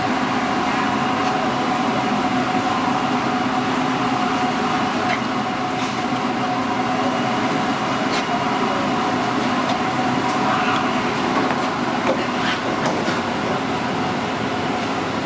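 Steady drone of commercial kitchen ventilation and equipment, with a few faint knocks of a chef's knife chopping grilled skirt steak on a plastic cutting board.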